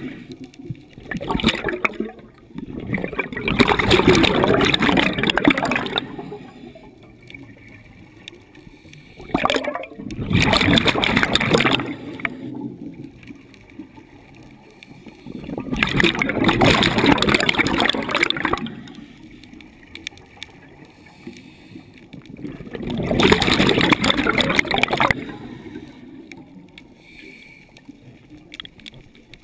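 Scuba exhaust bubbles rushing and gurgling past the mask and camera. They come in long bursts every six or seven seconds, one per exhaled breath through the regulator, with quieter spells between them while the diver inhales.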